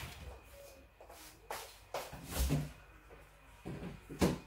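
Refrigerator door being opened amid a handful of short knocks and rustles of kitchen handling.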